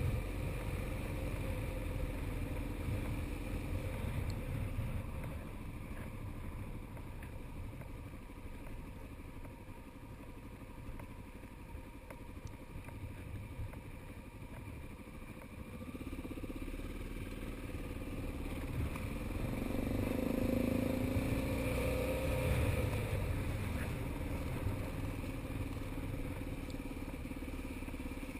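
Motorcycle engine running at low road speed, quieter through the middle, then pulling away with its engine note rising about two-thirds of the way through.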